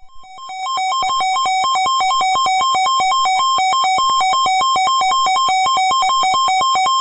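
Weather radio emergency alert tone announcing a tornado warning: a loud electronic alarm rapidly alternating between two pitches, swelling up within the first second and then holding steady.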